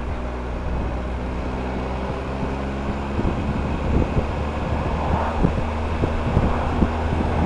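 Triumph Tiger motorcycle's three-cylinder engine idling steadily. From about three seconds in, the even idle note breaks up into gusting wind noise on the microphone.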